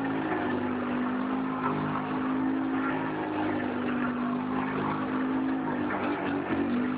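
ATV engine running at fairly steady revs, its pitch dipping briefly near the start and wavering near the end.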